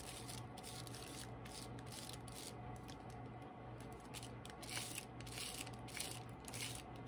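Foam brush spreading wet stain glue across a sheet of paper in faint, irregular rubbing strokes, over a steady low hum.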